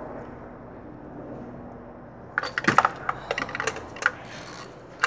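Hand ratchet clicking on a socket extension in a spark plug well: an uneven run of quick metal clicks from about halfway through, with another click near the end.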